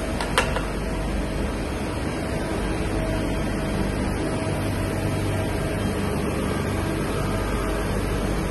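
Steady hum and whir of running machining-cell machinery, a CNC lathe with its robot loader, with two sharp clicks just after the start.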